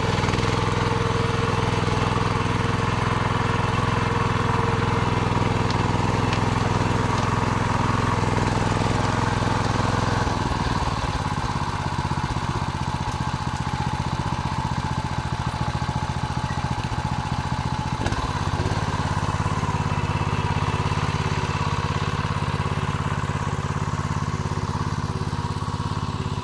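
Engine of a Ferrari walking tractor running steadily under load, driving a BCS rotary tiller through the soil. From about ten seconds in, the engine note goes uneven for several seconds, then steadies again.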